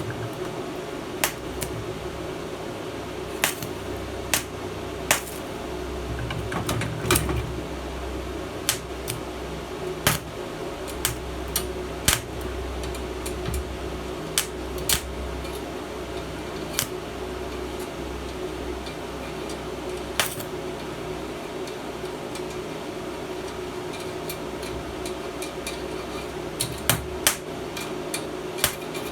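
Welding machine humming steadily, with irregular sharp metallic clicks and taps, about one every second or two and a quick cluster near the end.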